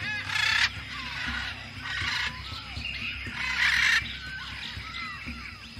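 Rainforest ambience of many birds calling, short whistled chirps and slurred notes overlapping, with three loud harsh squawks about half a second in, around two seconds and around three and a half seconds, the last the loudest. A steady high tone and a low hum run underneath.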